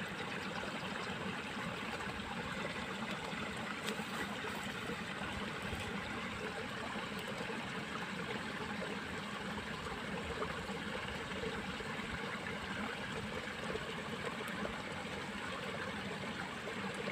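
Water flowing steadily in a small irrigation ditch, an even trickling rush.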